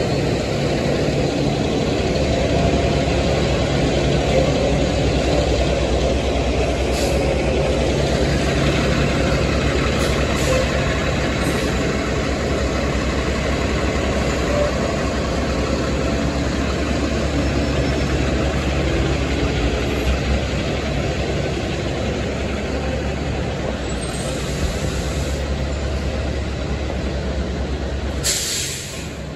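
City bus engines running at idle close by: a steady low hum. A short hiss comes near the end as the hum drops away.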